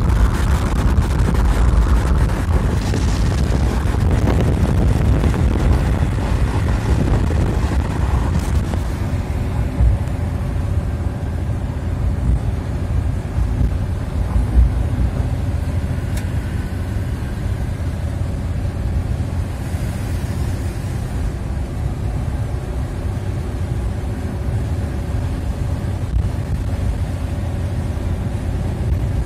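A car driving, heard from inside the cabin: a steady low engine-and-road drone with tyre and wind noise. The rush is stronger for the first nine seconds or so, then settles into a calmer steady hum.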